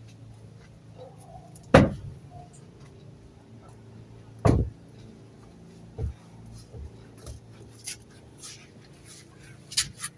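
Two loud knocks about three seconds apart and a softer one a second and a half later, then scattered light clicks and scrapes, over a low steady hum.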